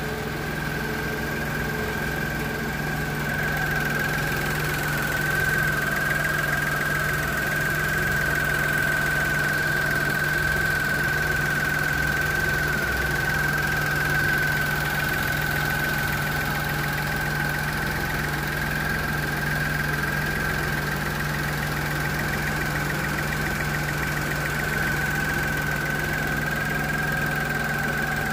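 Dacia Sandero's TCe 90 engine, a 1.0-litre three-cylinder turbo petrol, idling steadily under an open bonnet. A constant high whine runs over the low engine hum.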